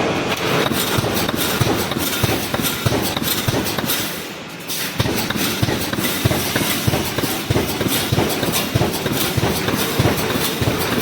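Pneumatic wire mesh welding machine running: a steady mechanical clatter of rapid, repeated clacks and knocks, easing off briefly about four seconds in.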